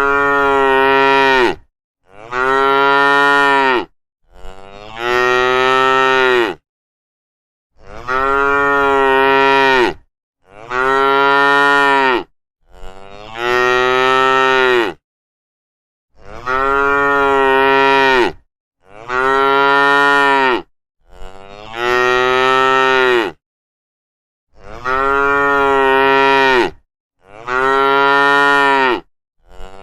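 Cows mooing over and over: a string of about a dozen long moos, each about two seconds, with short gaps of dead silence between them.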